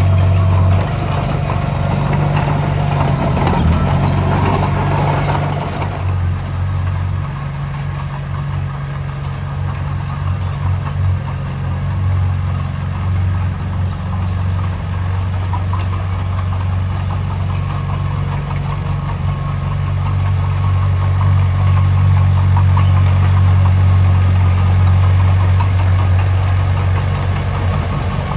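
Engine of heavy road-building machinery running steadily with a low hum, with extra mid-pitched mechanical noise during the first six seconds.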